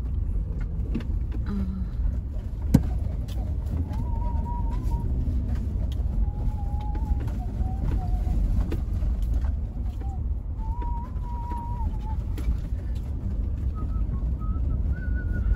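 Vehicle driving on a gravel and dirt road, heard from inside the cabin: a steady low rumble of engine and tyres with scattered clicks of stones. There is one sharp knock about three seconds in.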